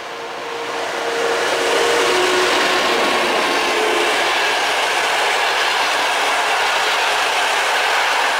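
Passenger train hauled by an EP09 electric locomotive passing at speed. The noise builds over the first couple of seconds as the locomotive goes by, then holds as a steady rush from the coaches' wheels on the rails.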